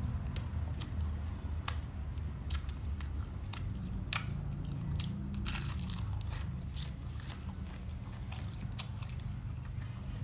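Close-miked chewing and biting of crusty bánh mì and grilled meat: irregular sharp crunches and mouth clicks, about one or two a second, over a steady low rumble.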